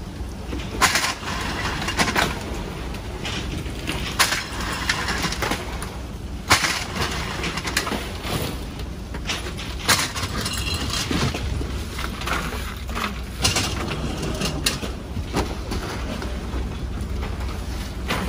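An engine runs steadily with a low hum, under irregular sharp knocks and clattering.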